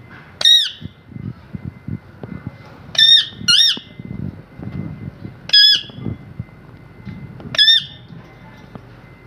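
A parrot squawking: five short, high-pitched calls with a wavering pitch, two of them close together about three seconds in, over a faint low rumble.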